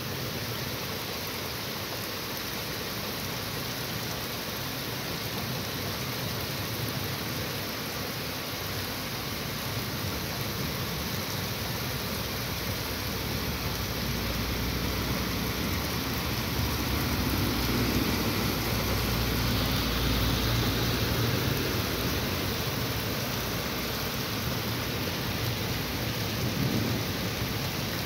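Heavy rain falling steadily, with a low rumble of thunder building and fading over several seconds around the middle.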